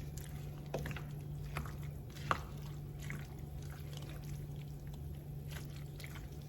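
Spoon stirring a creamy cabbage, sausage and cheese mixture in a dish: soft wet squishes and scattered clicks of the spoon against the dish, the sharpest about two seconds in, over a steady low hum.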